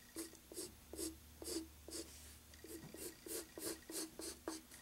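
Wooden pencil sketching on paper in short, quick repeated strokes, about three a second, a faint scratching.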